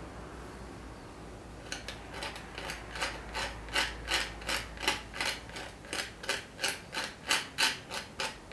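A thin tool scratching into the textured layer of water-based cold wax and acrylic paint, in short repeated strokes about three a second, starting about two seconds in.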